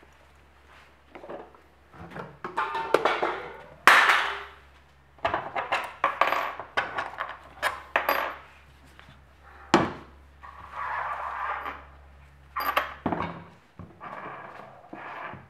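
Irregular workshop handling clatter: sharp clicks and knocks with short scraping sounds, as tools and parts are moved about on a wooden workbench, over a faint steady hum that stops about 13 seconds in.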